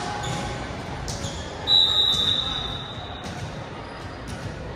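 Basketball game in a gym: ball bounces, sneakers squeaking and crowd chatter. About halfway through, a referee's whistle blows once for about a second; it is the loudest sound.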